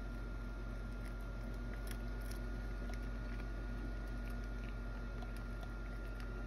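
A cat chewing dried sardines (niboshi): small, scattered crunches and clicks, over a steady low hum with a faint high whine.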